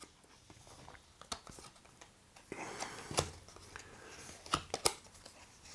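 Small cardboard playing cards being handled and slid over one another: faint rubbing and a few light clicks, with a sharper tap about three seconds in and two more near the end.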